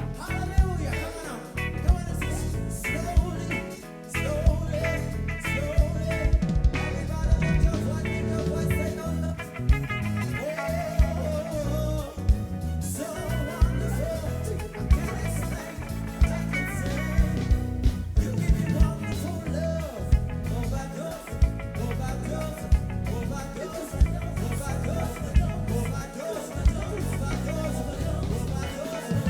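Live reggae band playing gospel music: drum kit with sharp snare and rimshot hits over a steady bass line, with guitar and singing.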